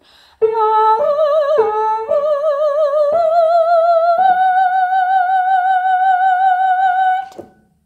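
One unaccompanied high voice singing with vibrato. A short phrase climbs in steps and ends on a long high note held about three seconds, which cuts off near the end.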